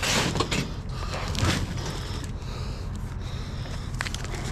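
Cardboard rustling and scraping, with a few sharp clicks of metal pipe fittings knocking together, as a box of them is handled; a steady low rumble runs underneath.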